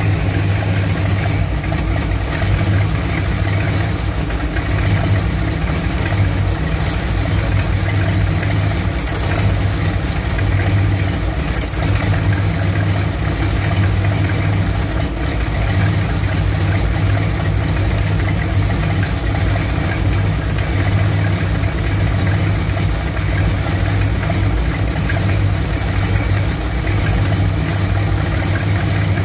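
1975 Dodge B200 van's Mopar 360 small-block V8 with a two-barrel carburettor idling warm, the idle uneven and rough. The roughness persists after a new ignition coil, which the owner links to its stalling once warm.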